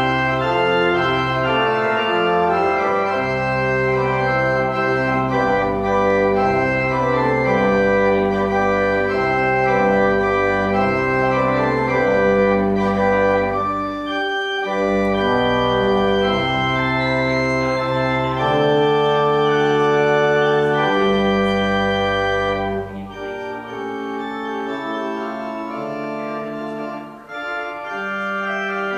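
Organ music: slow, sustained chords over a moving bass line, with a brief break about halfway. The bass drops out and the playing gets quieter for the last several seconds.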